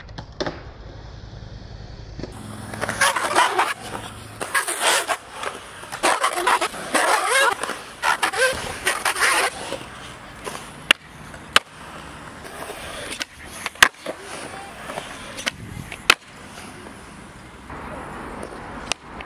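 Skateboard wheels rolling and rumbling over concrete ramps, then several sharp clacks of the board striking the concrete during pops and landings.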